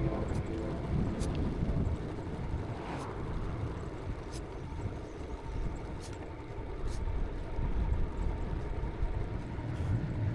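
Ride noise from a moving bicycle: wind rumbling on the microphone with tyre and road noise, and a few faint clicks.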